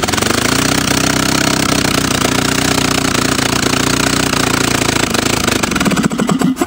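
Willys L-134 flathead four-cylinder engine, firing on cylinders one and four only, with the other two cylinders working as an air compressor. It picks up speed as it catches, then runs loud and steady under its governor with no exhaust pipe fitted. About six seconds in it slows and stops.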